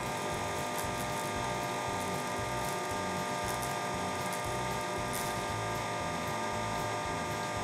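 Wood lathe running steadily at about 3000 RPM, a steady motor whine with several held tones over a mechanical hum.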